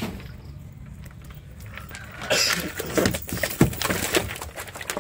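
A fish thrashing in a cast net on the floor of a boat: a quick run of wet slaps and knocks against the hull, with the nylon mesh rustling. It starts a little before halfway through and is loudest from then on.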